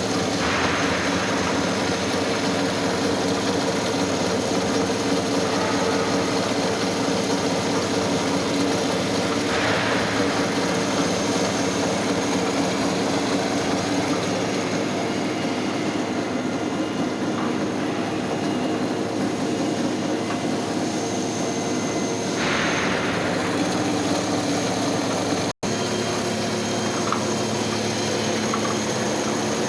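CNC milling machine running steadily with a constant machine hum while milling side covers; the cutting noise swells briefly three times.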